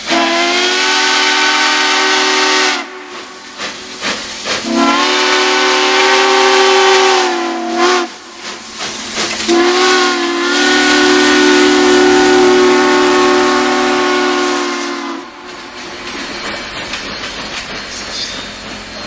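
Southern Pacific 4449 Daylight steam locomotive's chime whistle sounding three long blasts, each one chord of several notes that sags slightly in pitch as it ends. After the last blast, about two-thirds of the way through, the passenger cars roll past more quietly.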